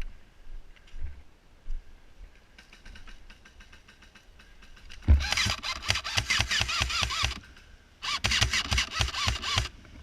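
Electric airsoft gun firing two long full-auto bursts: a rapid, even rattle of shots over a motor-driven whine. The first burst starts about five seconds in and runs for about two seconds, and the second follows shortly after.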